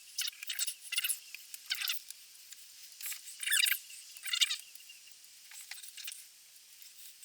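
Short squeaks and scrapes, about eight of them, loudest about halfway through, as a Kawasaki GPZ500S piston with its rings is worked into the oiled cylinder bore.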